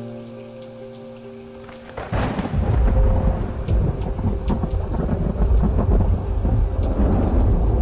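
Soundtrack of held synth chords over a rain sound effect; about two seconds in, loud thunder breaks in and keeps rumbling over heavy rain.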